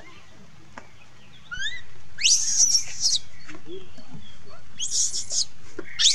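Baby macaque crying with high-pitched screams: three shrill calls starting about two seconds in, led by a few short rising chirps.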